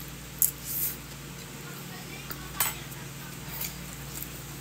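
Metal fork and spoon clinking against a ceramic plate while eating: a few sharp clicks, the loudest about half a second in and another a little past halfway, over a steady low hum.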